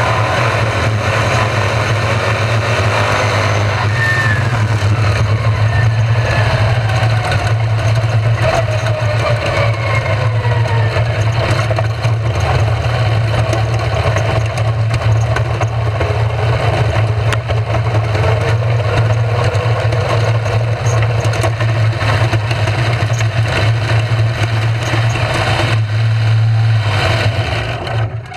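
RaceSaver sprint cars' V8 engines running on the dirt track: a loud, steady engine drone, with the pitch of passing cars gliding downward several times in the first half.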